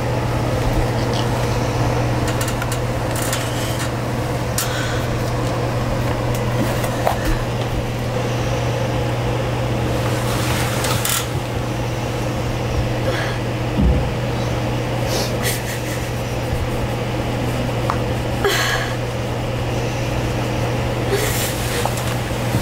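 Steady low hum of room noise, with a few short soft sniffs and rustles of bedding scattered through it and one brief low thump about halfway.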